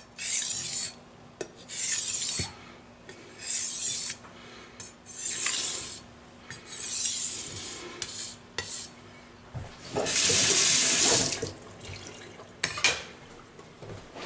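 Kitchen knife blade pushed across a wet 3000-grit whetstone in slow strokes: a wet rasping scrape about every second and a half, five times, then one longer, fuller scrape about ten seconds in, followed by a few light knocks.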